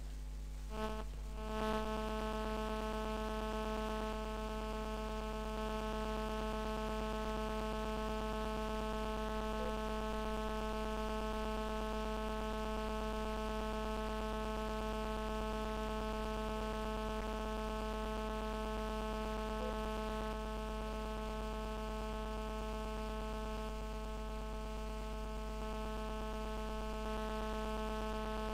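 Steady electrical mains hum with a buzzy stack of higher humming tones above it, unchanging throughout.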